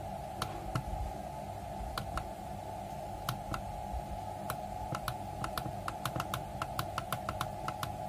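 The keypad buttons of a Dixell digital refrigeration controller, clicking as they are pressed again and again to step a temperature setting down. The clicks come a few at a time at first, then quicken to several a second in the second half.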